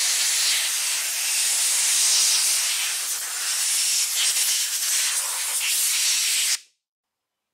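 Compressed-air blow gun giving one long, loud hiss as it blasts loose, chipping paint off an intake manifold, then cutting off sharply near the end.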